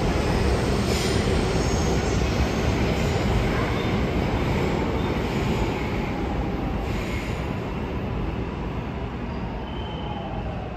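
Seoul Subway Line 4 electric train (341000-series set 18) pulling into the station: a steady rumble of wheels on rail that slowly fades as the train slows. There are brief faint wheel squeals, and a gently falling whine near the end.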